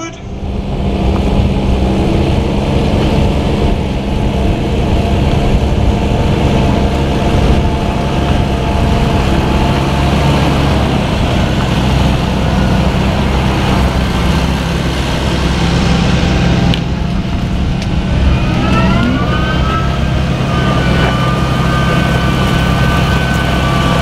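Fendt tractor's diesel engine running steadily under load while pulling a reversible plough through heavy, wet soil. About 18 seconds in a whining tone rises in pitch and then holds.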